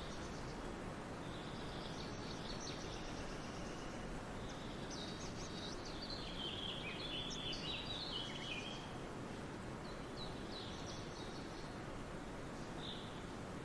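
Several songbirds chirping and trilling over a steady hiss of background noise, the birdsong busiest in the middle.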